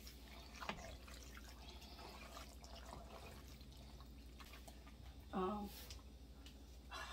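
Wooden spoon stirring and folding sauced pasta in a stainless steel stockpot: faint wet squelching with a few light scrapes and knocks against the pot.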